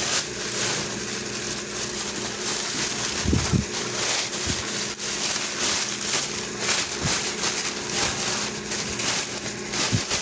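A thin clear plastic bag crinkling and rustling as it is handled around a cloth-wrapped handbag, with a couple of dull thumps about three and a half seconds in.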